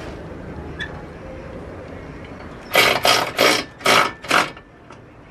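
Hand ratchet wrench clicking in about five quick strokes about halfway through, tightening a bolt on an aluminium tank mounted in the engine bay.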